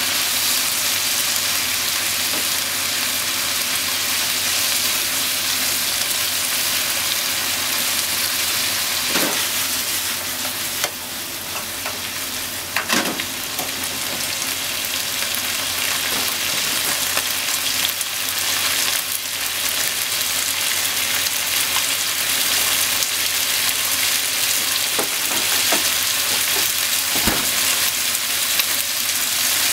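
Pork and sliced onions sizzling steadily in a frying pan, stirred with chopsticks at first. A handful of short, sharp clicks stand out over the sizzle in the middle stretch.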